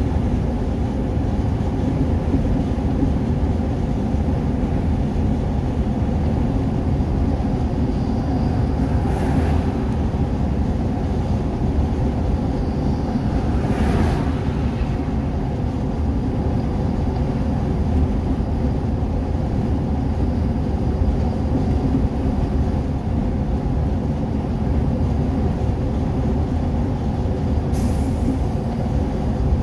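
Steady engine and road noise heard inside a vehicle's cabin at highway speed: a low, even drone. Faint brief swishes come about nine, fourteen and twenty-eight seconds in.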